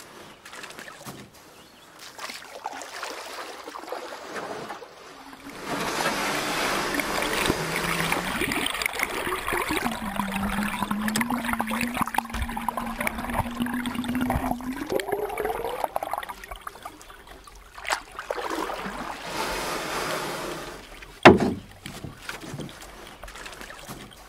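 Water rushing and gurgling around a GoPro in its waterproof housing, held at and just below the surface of a shallow stream. A low hum holds steady in the middle and then rises in pitch, and a single sharp knock comes near the end.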